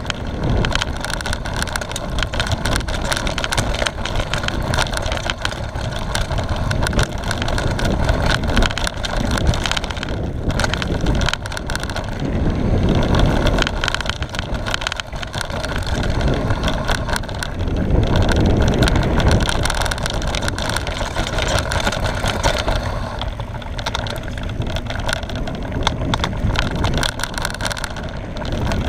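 Mountain bike ridden fast down a dirt forest trail, heard from a camera on the rider: wind buffeting the microphone, tyres on dirt and a constant rattle of the bike over bumps, louder about 13 and 18 seconds in.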